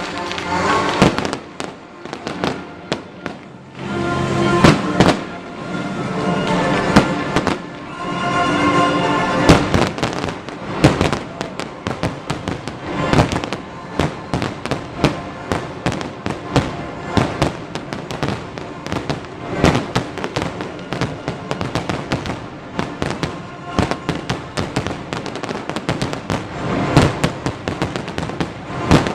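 Fireworks display: aerial shells bursting in a rapid run of bangs and crackles, which thickens into a near-continuous crackle after about ten seconds. Music plays along under the bursts in the first third.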